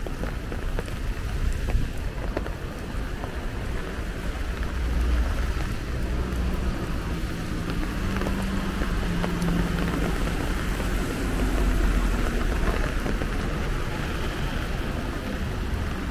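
Steady rain with wind rumbling on the microphone. From about six to ten seconds in, a low droning engine hum from passing road traffic sits over it.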